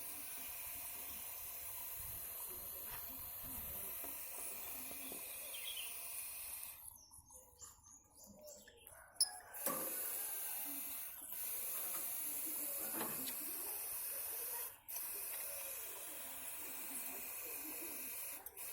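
Fine water spray hissing steadily onto a lovebird being bathed. It stops about seven seconds in, then starts again after a sharp click about two seconds later, with a few brief breaks after that.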